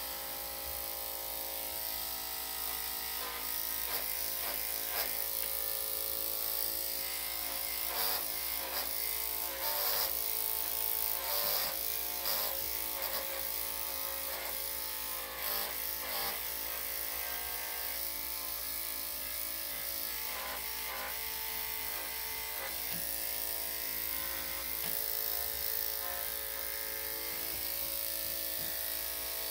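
Electric dog grooming clippers with a #7 blade running steadily, a constant motor buzz. There are brief changes in the buzz, most between about 3 and 16 seconds in, as the blade is worked through the dog's coat.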